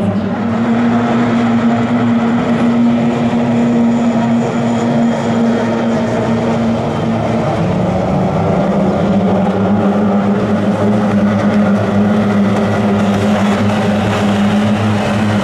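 Kyotei racing boats' two-stroke outboard motors running flat out as the boats race past, a steady engine drone whose pitch steps down about halfway through.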